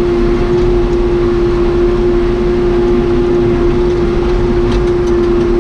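1993 Case 580 Super K backhoe's four-cylinder Cummins 4BT diesel running at steady revs, with a strong, even whine over the engine noise.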